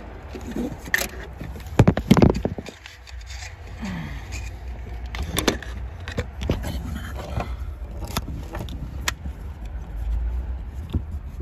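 Scattered clicks, knocks and scrapes of hands at a fuel pump's wiring connector, its lock pressed and the plug pulled free, with a louder knock about two seconds in. A low steady hum runs beneath.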